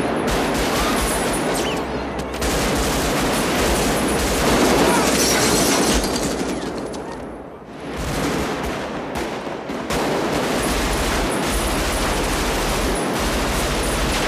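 Sustained rapid automatic rifle fire mixed with pistol shots in a movie street shootout, near-continuous, with a short lull about seven and a half seconds in.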